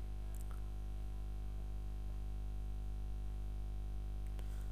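Steady low electrical hum with a faint hiss under it, with nothing else happening.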